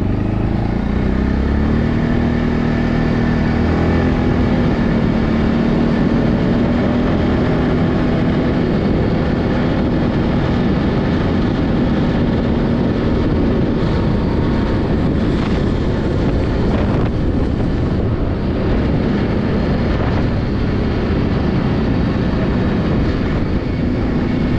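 ATV engine running while riding, its pitch rising in steps over the first few seconds as it picks up speed, then holding fairly steady.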